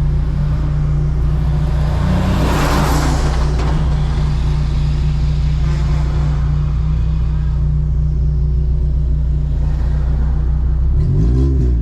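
Car engine and road noise heard from inside the cabin while driving, a steady low drone. About two to three seconds in, a louder hissing whoosh swells and fades.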